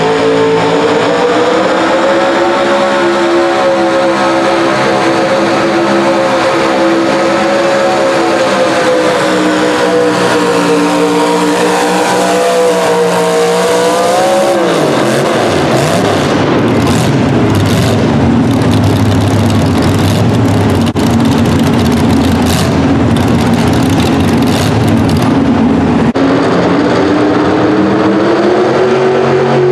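Pro Stock mini pulling truck engine running at full throttle under load as it drags the pulling sled, its pitch wavering. About halfway through the revs fall away sharply as the pull ends, leaving a lower, rougher engine rumble. Near the end another mini truck engine comes in at high revs, its pitch rising.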